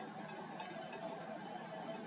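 Steady background noise with a thin, high-pitched pulsing tone repeating about eight times a second; no distinct bird calls stand out.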